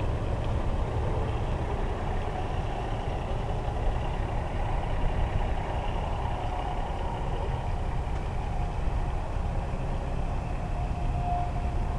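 Semi truck's diesel engine running steadily at low speed.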